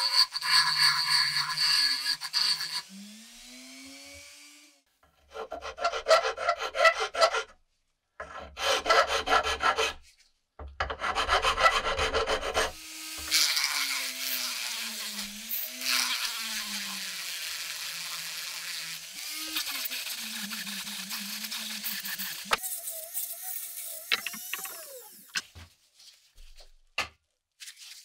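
Rotary tool with a small sanding drum grinding a wooden knife handle, a high whine with rough rasping as the drum bites the wood. It comes in several stretches, with short rough bursts of sanding about a third of the way in and a long steady run whose motor pitch wavers under load, followed by a few light clicks near the end.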